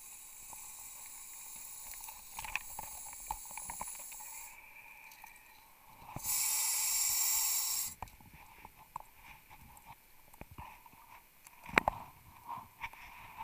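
Underwater, a hiss of gas from a diver's rebreather gear runs faintly at first, then turns loud and full for about two seconds midway. Scattered small clicks are heard, and a sharper knock comes near the end.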